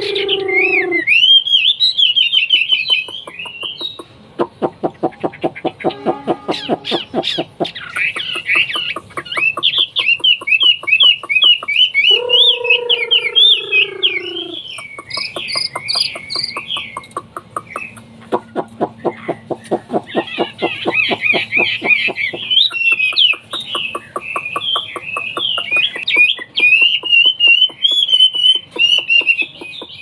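Chinese hwamei singing: a loud, varied run of rapid whistled phrases, broken by stretches of fast dry rattling and, twice, by a lower descending call.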